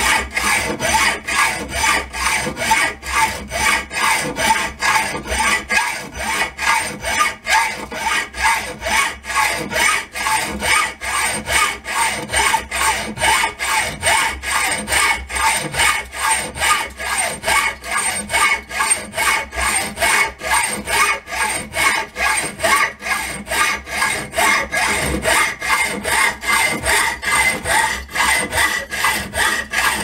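Hand hacksaw cutting through a steel square tube held in a bench vise, in steady back-and-forth strokes of about two a second, the blade rasping on each stroke.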